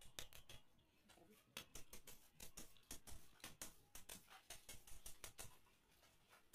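A mallet giving a series of light, irregular taps on an aluminium sliding-door track profile, knocking the frame pieces into place.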